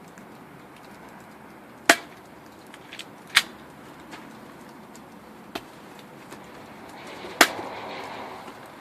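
BB gun firing: three sharp snaps spread over several seconds, the last the loudest, with a few fainter clicks between them.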